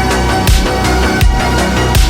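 Electronic background music with a heavy bass and a strong beat about every three-quarters of a second.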